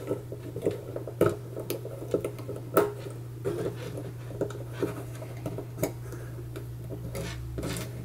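Mega Bloks plastic pieces clicking and tapping as hands fit a minion figure and its fishing rod onto the toy shark, a scattering of small sharp clicks over a steady low hum.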